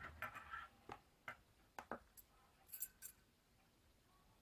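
Faint scattered clicks and light metallic clinks of steel hand-mixer beaters being handled and set down on a plastic kitchen scale.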